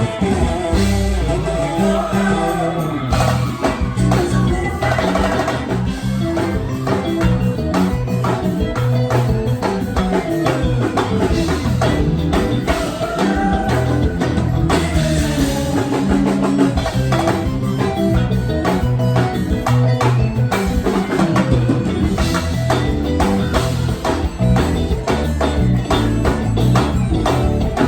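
Live band playing forró gospel music at a soundcheck, with drums and guitar over a steady beat.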